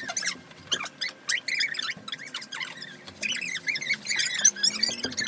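Many short, high squeaks of wet wipes being rubbed over tabletops, several at once, busiest in the second half, as children wipe off paint.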